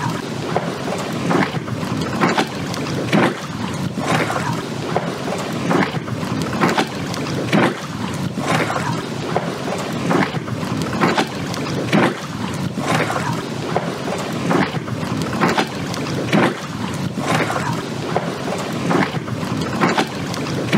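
Choppy water lapping and slapping against the pier and a moored boat, a soft surge about once a second, under wind buffeting the microphone.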